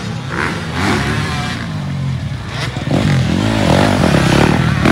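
Motocross dirt bikes racing, their engines revving up and down in repeated swells of pitch; louder from about three seconds in.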